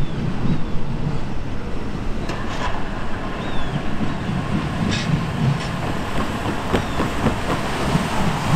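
Intermodal container train's rumble and wheel clatter, passing at a distance. From about two seconds in come scattered sharp knocks, bunching near the end as cars' tyres bump over the grade-crossing rails.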